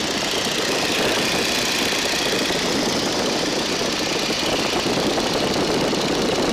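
Boeing Stearman biplane's radial engine and propeller running steadily in cruise, heard from the open cockpit with a constant rush of wind over the airframe.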